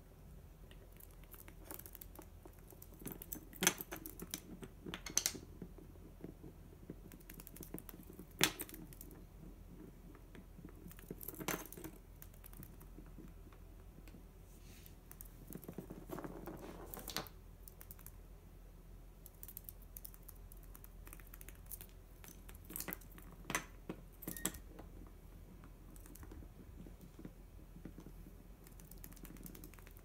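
Irregular light clicks and taps, a few seconds apart, from a budgie pecking at and knocking about small plastic toys and a bottle cap on a wooden floor, with a soft rustle about midway.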